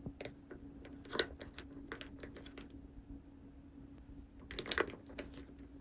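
Light, scattered clicks and taps of small plastic toy pieces being handled, with a cluster of clicks near the end, over a faint steady hum.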